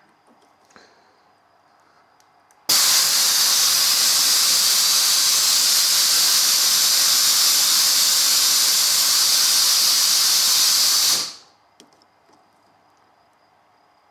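A loud, steady hiss that starts abruptly about three seconds in, holds even for about eight seconds, then cuts off quickly.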